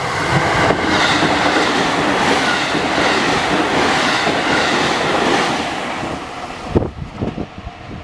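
JR Tokai electric commuter train passing through a level crossing at speed: a loud, steady rush of wheels on rail that drops off sharply about seven seconds in as the last car clears. A few separate wheel knocks follow as the tail goes by.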